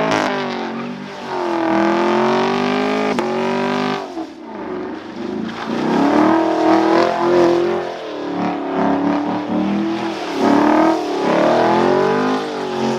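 A performance car's engine revving hard with traction control switched off, its pitch climbing and falling over and over as the car is driven aggressively, with a brief drop about four seconds in.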